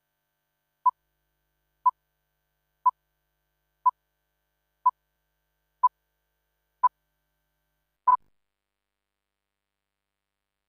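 Countdown beeps from a broadcast programme slate: eight short beeps of the same pitch, about one a second, the last a little longer.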